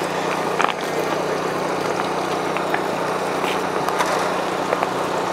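An engine running steadily with an even hum, with a few light clicks over it.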